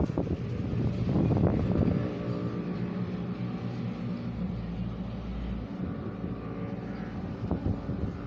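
A motor engine running, rougher and louder for the first two seconds, then settling into a steady, even hum.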